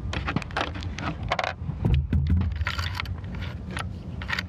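.44 Magnum cartridges being thumbed one by one through the loading gate of a Marlin Dark lever-action rifle into its tube magazine: a run of quick metallic clicks and scrapes over a steady low rumble.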